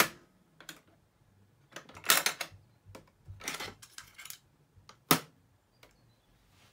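Music from the National Panasonic RS-451SD boombox cuts off at once as a key on its cassette deck is pressed, followed by mechanical clicks and plastic clatter as the cassette is ejected and lifted out, with a sharp click about five seconds in.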